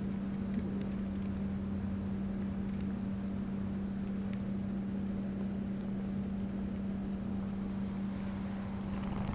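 A steady low hum over a faint constant hiss, with one small tap about half a second in.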